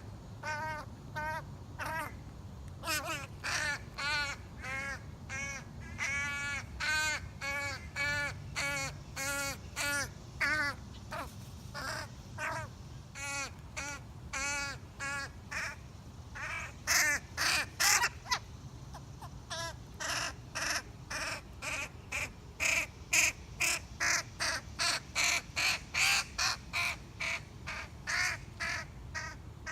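Young crow calling loudly over and over: a steady series of nasal caws, each rising and falling in pitch, about one to two a second, growing louder and quicker in the second half.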